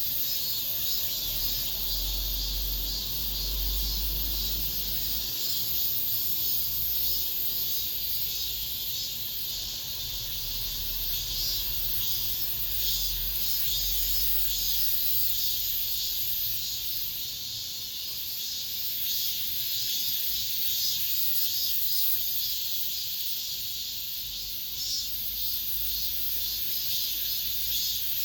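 Cicadas singing in chorus: a dense, high, steady buzz with a fine pulsing texture. A low rumble comes and goes beneath it.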